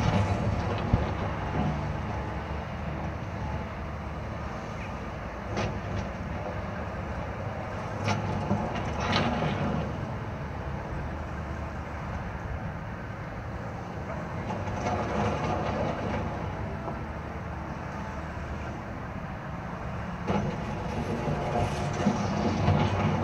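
Cat wheeled excavator's diesel engine running steadily as it works, with a scatter of sharp knocks and clatter from the bucket breaking up and dropping slabs of old road asphalt.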